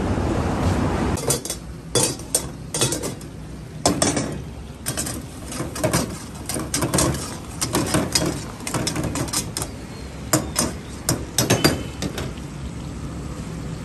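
A metal ladle clanking and scraping against a steel karahi as mutton pieces are stirred in hot oil, in many irregular strikes.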